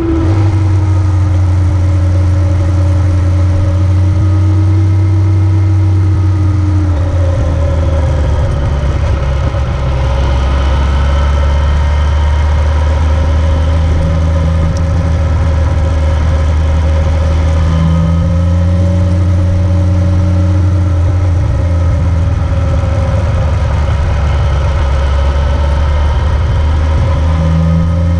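A vehicle engine running continuously under way, with its pitch slowly falling and rising a few times as the speed changes.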